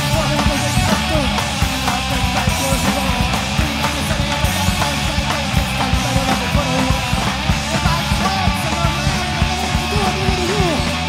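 Punk rock band playing live: electric guitar and drum kit going at a steady, dense pace with no break.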